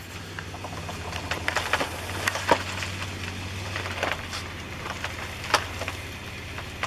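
Palm trunk giving way under the pull, with irregular sharp cracks and snaps of splitting wood, over the steady low running of the truck's engine pulling on the rope.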